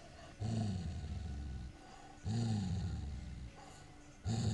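Airedale terrier growling: two long, low, rumbling growls, each swelling up and falling away in pitch, and a third starting near the end, with short pauses for breath between them.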